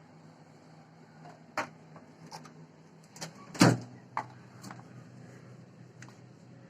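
Convection microwave oven being handled: a series of clicks and knocks with one loud door thud a little past the middle, over the oven's steady low hum, whose pitch drops after the thud.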